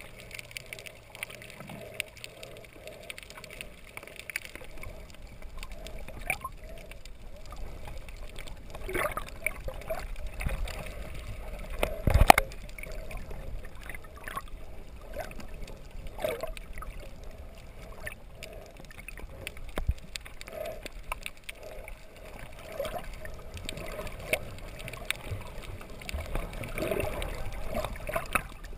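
Water gurgling and sloshing around the camera, with scattered small knocks and one loud thump about twelve seconds in.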